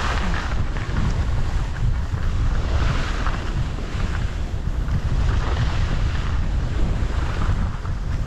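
Wind buffeting the microphone: a loud, steady low rumble with hiss over it.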